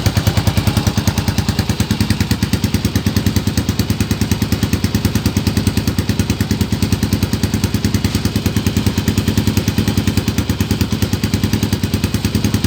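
Motorstar Cafe 400 motorcycle engine idling steadily, with an even, rapid exhaust pulse and no revving.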